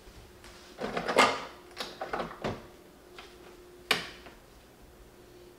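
Hands working a Nespresso Creatista Plus capsule machine: a few knocks and clatters, then a single sharp click about four seconds in.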